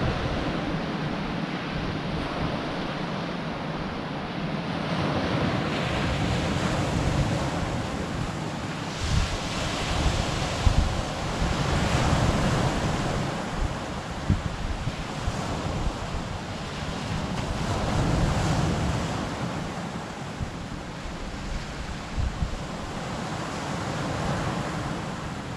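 Sea waves breaking and washing onto a pebble beach, the surf swelling and ebbing with each wave. Wind buffets the microphone throughout.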